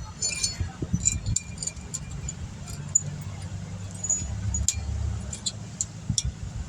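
Light metallic clicks and clinks of small steel brake pad hardware clips being handled and pressed into a disc brake caliper bracket, over a low background rumble.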